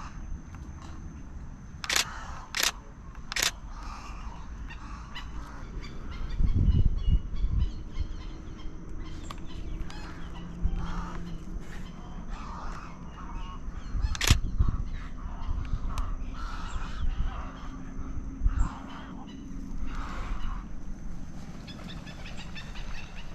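Many waterbirds calling at once, short harsh squawks and honks overlapping throughout. A few sharp clicks come about two to three and a half seconds in and again about fourteen seconds in, and there are low thumps.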